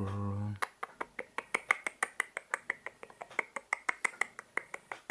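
Quick, rhythmic smacking clicks of a baby's mouth sucking, about five a second, after a short word of speech at the start.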